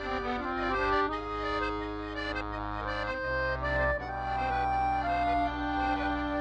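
Accordion music: a tune over held chords and steady bass notes, the bass moving to a new note about three seconds in.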